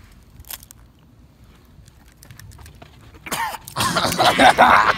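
A person coughing and gagging loudly on a mouthful of raw egg, starting about three seconds in after a few faint clicks.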